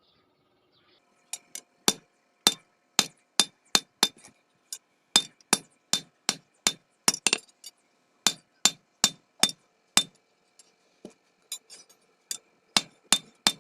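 Blacksmith's hand hammer striking metal on an anvil, forging a ladle. The blows come at about two to three a second, beginning about a second in, with a faint ringing between them and a couple of short pauses.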